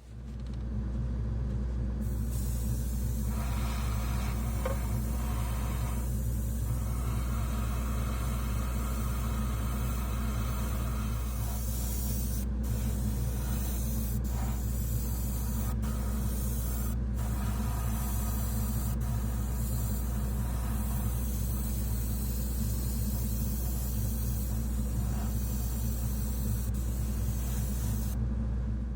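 Small airbrush compressor motor running with a steady hum, and the airbrush spraying paint with a hiss from about two seconds in, cut off briefly a few times and stopping just before the compressor is switched off.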